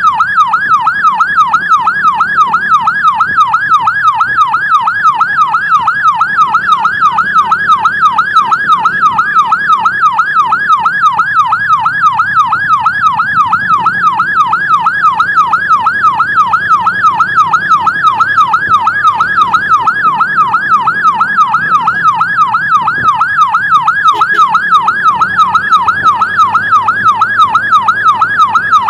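Electronic emergency-vehicle siren in a fast yelp, its pitch sweeping up and down a few times a second without a break, over a faint low vehicle rumble.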